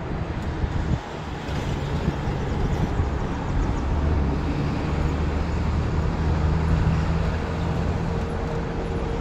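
A motor vehicle engine running, a steady low hum that builds up over the first few seconds and stays strong to near the end.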